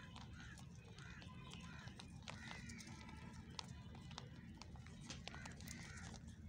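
Rabbits chewing dry chopped feed: faint, irregular crunching clicks over a steady low hum.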